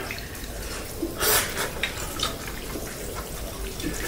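Noodles being slurped with chopsticks from a bowl: one short wet slurp about a second in, then a few faint clicks of chopsticks on the bowl.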